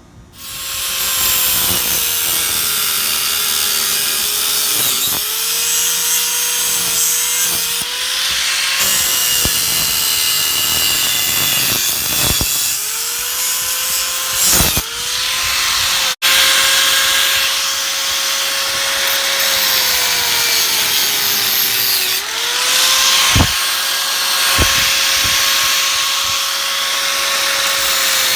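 Handheld electric power tool cutting through the metal of a car seat frame. The motor whines steadily and its pitch sags each time it bites into the metal. It stops briefly about halfway through and starts again.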